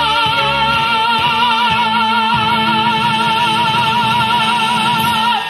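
A woman singing one long, high held note with a wide vibrato into a microphone, over a steady low accompaniment; the note breaks off near the end.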